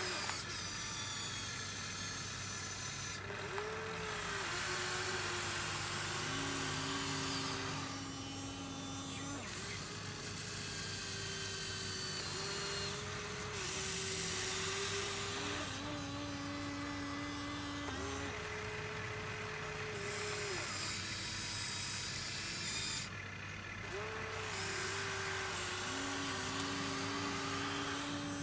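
Small electric motors of a Huina 1593 RC excavator whining as it works, the whine switching between a few pitches in stretches of one to three seconds, over a constant hiss.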